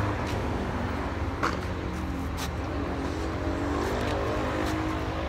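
A large vehicle's engine, likely the coach bus parked behind the gate, idling with a steady hum, with a few faint clicks over it.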